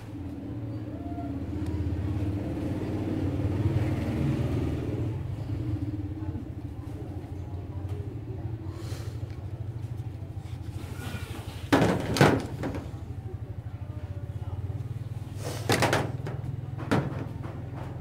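Plastic toy soldier figure and toy guns being handled, under a steady low rumble. The plastic clacks sharply a few times, in two clusters about two thirds of the way through and near the end.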